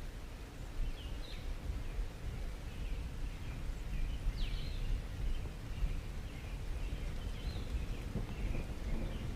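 Faint, scattered bird chirps, some short sweeping notes, over a steady low outdoor rumble.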